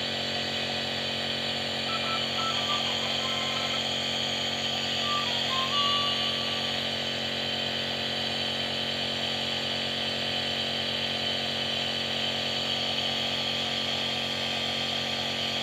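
Electric compressor nebulizer running steadily, a motor hum with an even hiss of air, misting cough medicine for inhalation.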